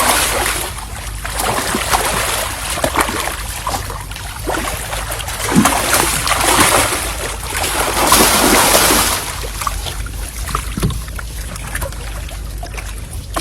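Water splashing and sloshing in irregular bursts, loudest about eight to nine seconds in, over a steady low rumble.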